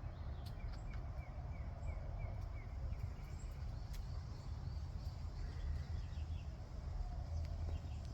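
Outdoor ambience: a bird gives a quick run of about eight short, evenly spaced chirps in the first three seconds, with scattered fainter chirps over a steady low rumble.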